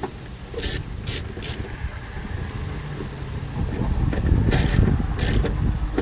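Hand socket ratchet clicking in short runs, tightening 10 mm bolts, with a low rumble underneath.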